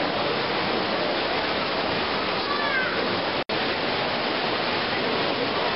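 Steady wash of crowd noise in a busy shopping-centre atrium, with a short high gliding cry a little before halfway. The sound cuts out for an instant just past halfway.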